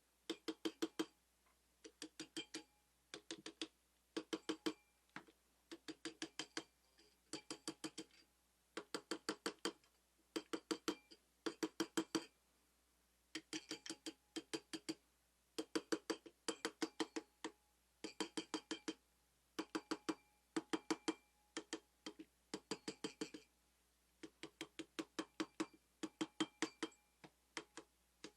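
A ratchet wrench clicking in short runs of four to six quick clicks, about once a second, as the handle is swung back and forth to drive a fastener on a Super Cub engine.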